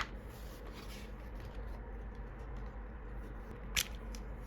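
A product box being opened and its contents handled: a soft sliding rustle in the first second, light ticks, and one sharp click a little under four seconds in.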